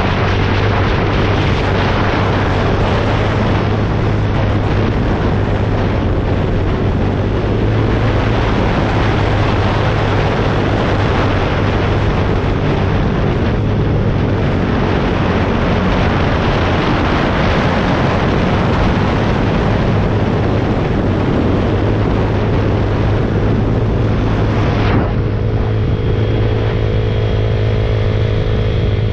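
Mini bike engine running steadily under way, with a loud, continuous rush of wind over it. About 25 seconds in, the rush drops and the engine's steady hum stands out more clearly.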